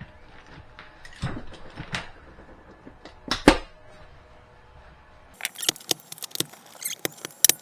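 Staples being pulled out of an RV wall: scattered scrapes and sharp clicks, a loud snap about three and a half seconds in, then a quick run of sharp clicks near the end.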